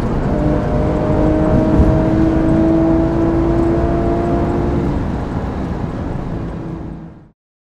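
Porsche 997.2 GT3 RS flat-six with a racing exhaust, heard from inside the cabin, accelerating hard: a brief break for a gearshift at the start, then the engine note climbs slowly in the next gear. The sound fades and cuts off near the end.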